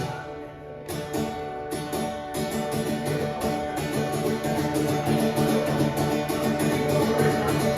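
Live guitar playing an instrumental passage of a folk song. It is softer for the first couple of seconds, then strummed in a steady rhythm.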